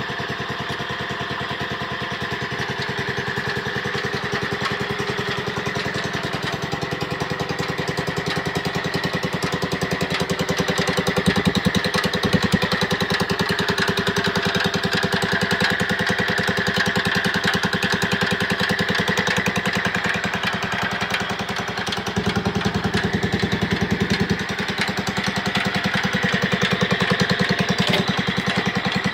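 Wheel Horse B-80 riding mower's Kohler single-cylinder engine running steadily with an even firing beat.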